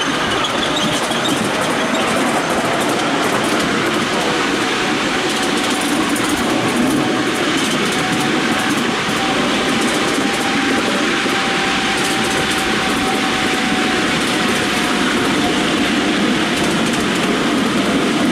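Miniature railway train hauled by a miniature BR Class 31 locomotive, heard from on board while running along the track: a steady rumble of wheels on rail with some clickety-clack, and a faint steady whine through much of the ride.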